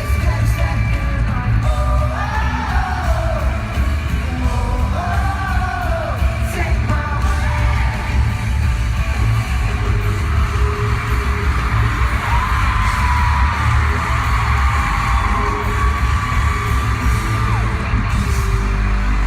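Live pop-rock band playing on stage, with a sung vocal melody over heavy bass and drums, heard from the audience through a phone's microphone, and fans screaming and singing along throughout.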